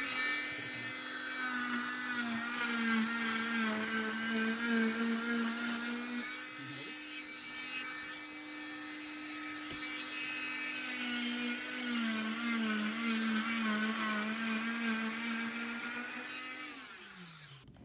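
Oscillating cast saw with an attached vacuum hose running as it cuts through a fiberglass wrist cast. Its whine wavers in pitch as the blade is pressed into the cast, then winds down and stops near the end.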